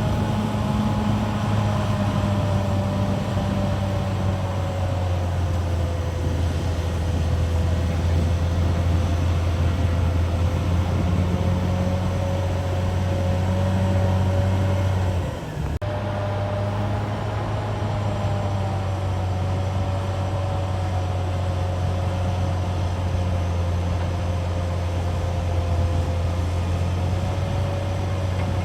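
CAT D6R XL bulldozer's diesel engine running steadily, with a deep hum and a whine that wavers slightly in pitch. The sound drops out for a moment about halfway through, then carries on.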